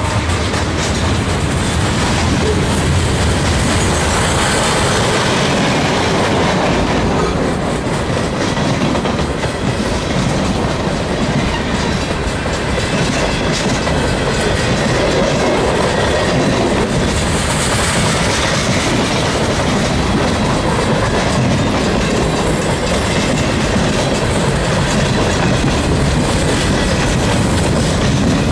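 Freight train cars rolling past at close range: steel wheels on the rails making a loud, steady clatter.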